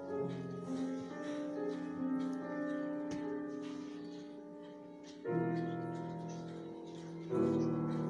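Recorder and piano playing together: held recorder notes over a piano accompaniment, with new piano chords struck about five seconds in and again near the end.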